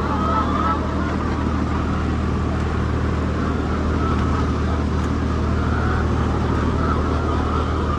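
A steady low motor hum, with poultry calling in short wavering cries over it now and then.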